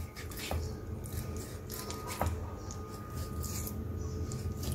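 Kitchen knife scoring raw chicken leg pieces on a wooden cutting board: irregular slicing and scraping strokes, with a few sharp ticks of the blade meeting the board.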